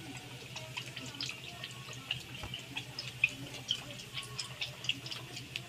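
Watery chicken chilli gravy simmering in a wok, its bubbles popping in small irregular ticks, a few a second, over a low steady hum.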